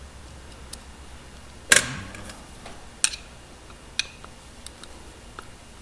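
Light clicks and knocks of hand tools and carburetor parts being handled on a workbench. One louder knock comes about two seconds in, then two sharper clicks about a second apart, with a few faint ticks between.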